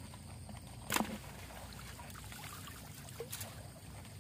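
Water trickling and splashing off a collapsible fish-and-crab net trap as it is lifted out of shallow canal water, with one brief sharp sound about a second in.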